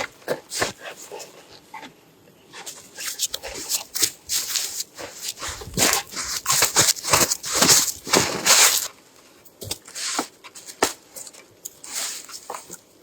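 A dog making a run of short, irregular noisy sounds, busiest in the middle.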